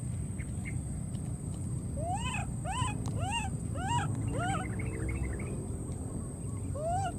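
An animal calling: a quick run of about six short calls, each rising then falling in pitch, then a single call near the end, over a steady high whine.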